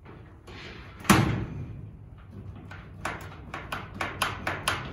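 Steel shed sliding door being worked in its track: one sharp metallic bang about a second in, then a quick run of clicks and rattles at about four or five a second.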